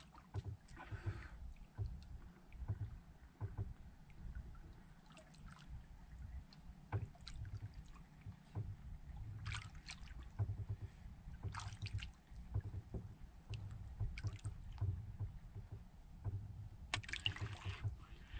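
Small wooden outrigger boat drifting on calm water: irregular low bumps and lapping against the hull, with a few short rustling scrapes from working the jigging rod and reel, the last as the rod is jerked up near the end.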